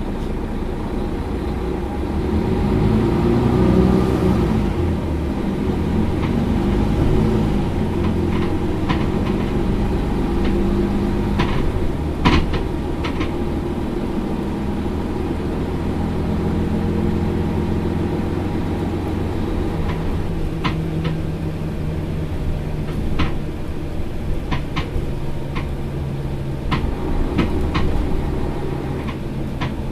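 Mercedes-Benz Citaro facelift LE city bus engine idling steadily while the bus stands, with scattered sharp clicks over the hum, the loudest about twelve seconds in.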